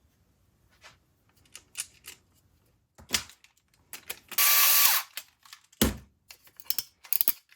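Clicks and clatter of 3D printed plastic puzzle parts being handled and fitted together, with a loud half-second burst of noise about four and a half seconds in, a single knock a second later, and a quick run of clicks near the end.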